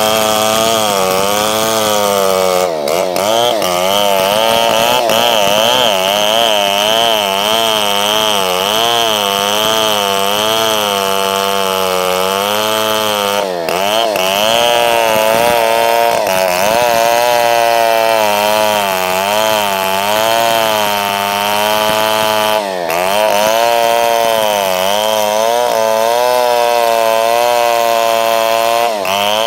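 Two-stroke chainsaw held at high revs while cutting through a tree trunk. Its pitch wavers up and down as the chain bites and recovers, with three brief drops in revs.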